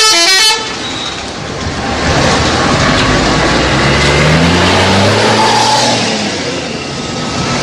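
A bus's telolet multi-tone horn plays its rapid chopped tune and cuts off about half a second in. Then the bus engine is heard running and revving up, its pitch climbing between about three and six seconds in.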